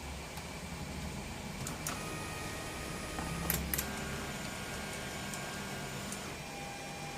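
3D printer's stepper motors whining as the print head moves through an auto bed-leveling routine, the whine shifting to a new steady pitch a few times, with a few sharp clicks over a low hum.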